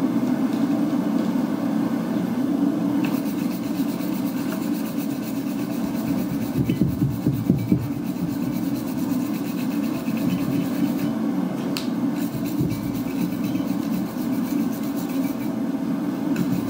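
Steel wire brush scrubbing scale off a hot, freshly twisted railway-spike handle on an anvil, in fast scratchy strokes starting about three seconds in, with a few louder knocks midway. A steady low roar runs underneath.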